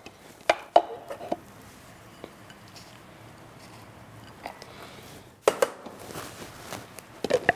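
Hard plastic clicks and knocks from the lid of a KitchenAid hand-blender chopper bowl: a few as it is lifted off, a quiet stretch, then a cluster of knocks about five and a half seconds in as it is set back on and seated.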